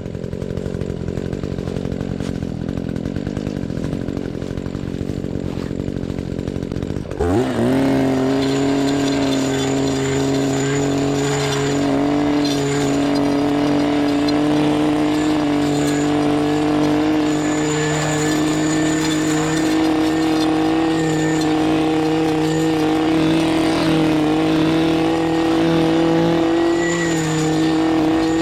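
Chainsaw engine idling roughly, then throttled up about seven seconds in and held at a high, steady speed, the pitch creeping slightly higher.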